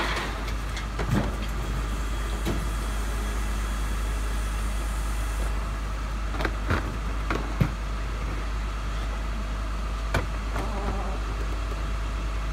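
Garbage truck engine running with a steady deep rumble, with a handful of short sharp knocks and clanks scattered through it.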